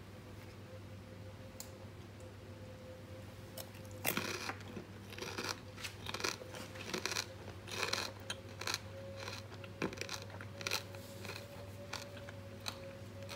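Crispy pork knuckle (crispy pata) skin crunching in irregular crackly crunches, starting about four seconds in, over a faint steady hum.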